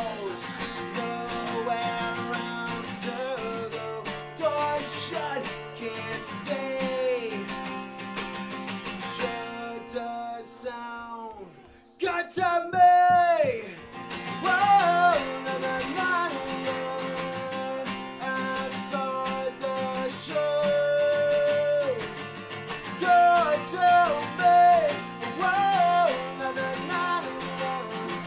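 Solo acoustic guitar strumming through an instrumental stretch of a punk song, with melody notes bending in pitch over the chords. It nearly stops about twelve seconds in, then comes back hard.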